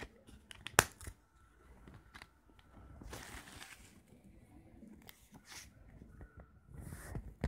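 Hands handling a disc digipak with a plastic disc tray: a sharp plastic click a little under a second in, then rustling and light tapping of card and plastic, with another rustle near the end.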